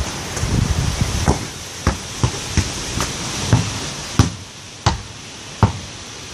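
A football being kicked or bounced over and over: about ten sharp thuds at uneven intervals.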